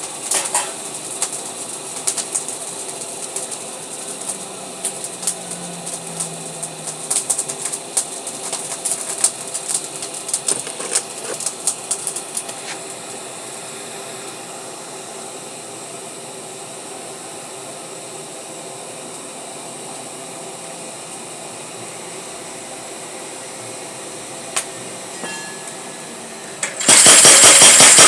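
Machine hum with irregular light taps and clicks, then near the end a power hammer starts pounding in fast, even, loud strokes.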